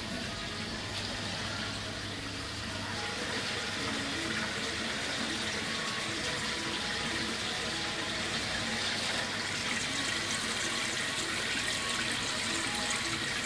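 Steady running and splashing of water from the shop's aquarium tanks and their filtration, growing a little louder a few seconds in, over a low steady hum.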